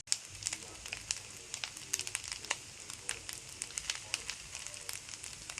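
Food frying in hot oil in a pan: a steady sizzle with irregular sharp crackles and pops.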